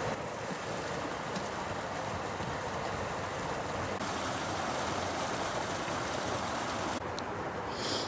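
Small waterfall in a stream, water rushing steadily over a low weir. The rush shifts abruptly in level about four and seven seconds in.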